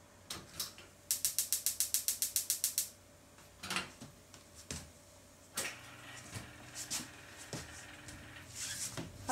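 Gas range's fish-grill igniter clicking rapidly, about ten sparks a second for nearly two seconds, as the grill burner is lit, followed by a few scattered knocks and clicks from the stove.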